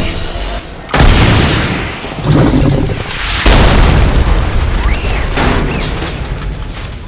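A big film explosion goes off suddenly about a second in, followed by further rolling booms as the fireball grows, then fades away over the last few seconds.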